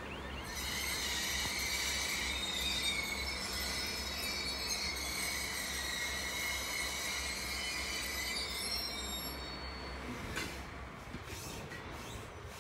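Wagons of a railway work train rolling slowly past, their wheels squealing in a shrill, many-toned screech over a low rumble. The squeal fades out near the end, leaving the rumble and a few clicks.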